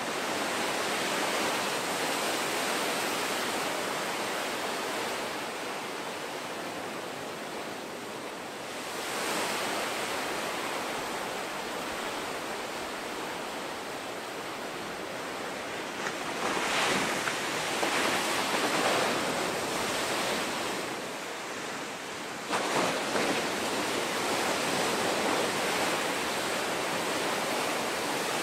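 Ocean surf: a steady wash of breaking waves and whitewater, swelling louder as waves crash, with the sharpest crash a little over three-quarters of the way through.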